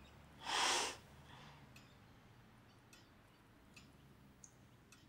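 A woman's single short breath, then a few faint clicks.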